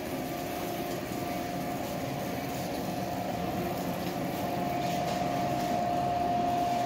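Steady mechanical hum with one steady mid-pitched tone running through it, slowly growing a little louder.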